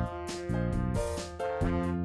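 A bouncy, upbeat tune played with both hands on a digital piano, in quick rhythmic chords, over a programmed backing with a bass line.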